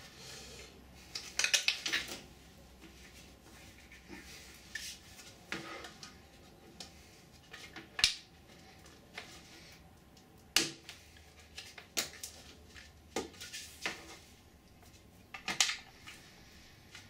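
Alignment pins being pulled out of a 3D-printed ABS mould: scattered sharp clicks and clattering knocks, some in quick little clusters. The loudest knocks come about 8 and 10.5 seconds in.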